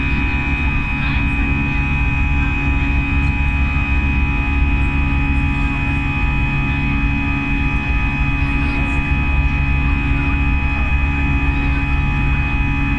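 Airbus A320-200 cabin noise: a steady drone of the engines and rushing air with a few constant tones over it, unchanging throughout.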